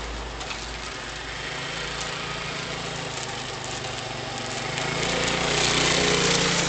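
BTL125 motorcycle engine running at idle, getting louder about five seconds in.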